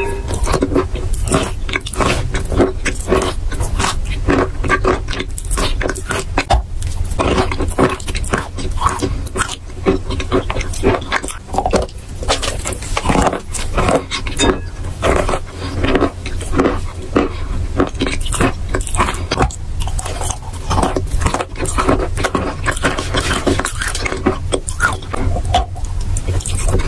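Close-miked crunching and chewing of chalk in the mouth: dense, irregular crackly crunches throughout, with a fresh bite into a chalk lump near the end.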